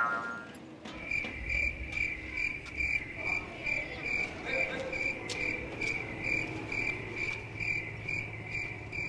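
Cricket chirping, a high, even chirp a little over twice a second that starts about a second in: the comic cricket sound effect for an awkward silence.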